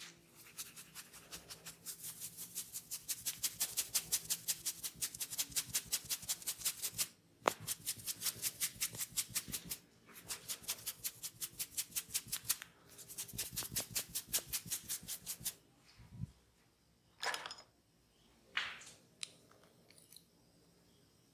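Massage tapping: hands striking the body in fast, even strokes, about five or six a second, in long runs broken by brief pauses, followed by a few separate taps near the end.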